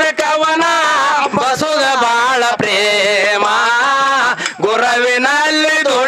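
A man singing a Kannada dollina pada folk song into a microphone, in long held notes that waver and bend, with short breaks for breath. Some faint sharp clicks sound between the phrases.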